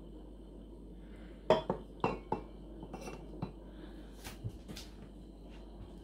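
Stainless steel thermal mug and plastic filter cup clinking and knocking as they are handled, fitted together and set down. A cluster of sharp, ringing clinks comes about one and a half to two and a half seconds in, the first the loudest, followed by several lighter knocks.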